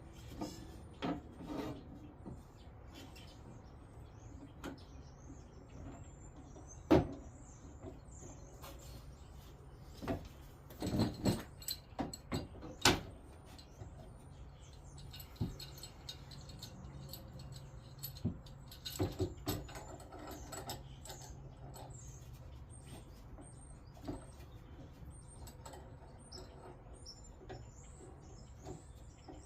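Scattered single knocks and clicks, the loudest about 7 s in and a cluster around 10 to 13 s, over a low steady hum, with faint high chirps running through.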